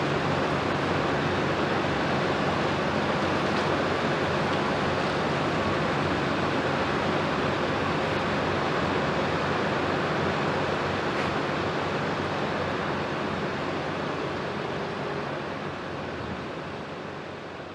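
Diesel engines of Caterpillar crawler excavators running steadily under load as they dig and swing. The sound fades out over the last few seconds.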